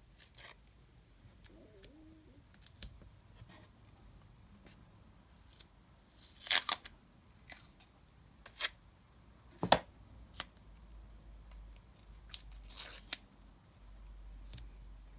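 Masking tape being cut into short strips with scissors: scattered snips and clicks, with a louder rasp of tape about six and a half seconds in and a sharp knock near ten seconds.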